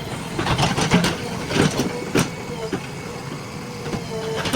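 JCB 3DX backhoe loader's diesel engine running with a steady hum, overlaid by scattered knocks and clatter every half second or so.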